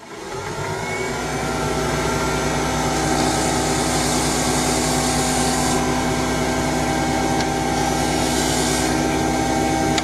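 Small lathe starting up and running steadily with a spinning collet chuck, its pitch rising briefly as it comes up to speed. A cutting tool turns down a fountain-pen section, adding a hissing cutting noise about three to six seconds in and again near the end.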